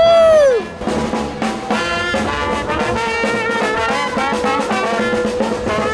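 Brass music playing, with one note held steadily underneath. It opens with a loud, short note that slides up and falls away.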